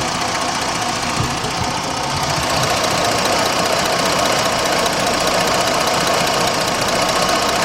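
2006 Jeep Grand Cherokee's 3.7-litre V6 engine idling steadily.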